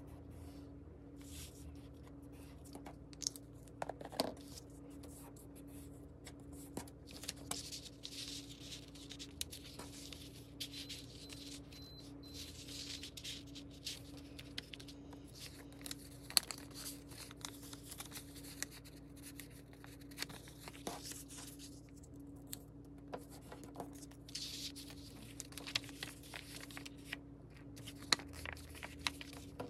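Paper rustling, sliding and crinkling as hands fold, press and fit kraft-paper and patterned-paper pieces of a small handmade notebook, with scattered light taps and clicks, over a steady low hum.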